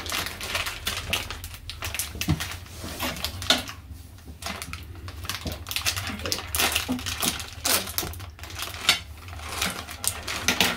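Plastic candy wrapper crinkling and crackling as the bag is torn open and handled, in quick irregular crackles.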